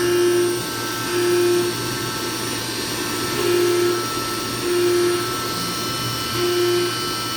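CNC milling machine running a milling job under emulsion coolant: a steady machine whine over a hiss. A low hum swells in short half-second pulses, five or six times, at uneven spacing.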